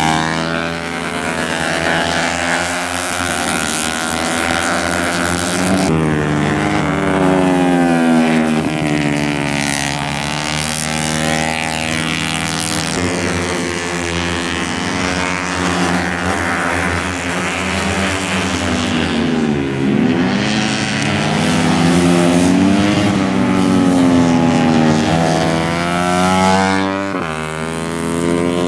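Race-tuned 150 cc four-stroke sport motorcycles at full effort through a hairpin. Their engines rev high, drop off sharply under braking and gear changes, then climb again as they pull out of the corner. More than one engine note overlaps as bikes pass.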